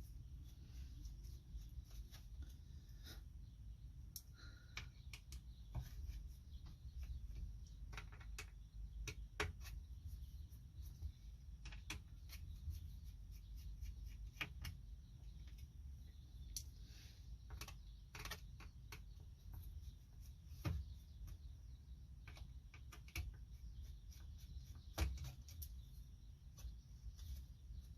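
Scattered light clicks and taps of hands and small tools working on a laptop, irregularly spaced, over a low steady rumble.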